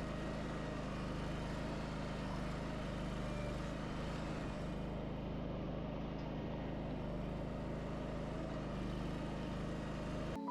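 An engine running steadily at constant speed, an even hum under a noisy mechanical wash, which cuts off abruptly near the end.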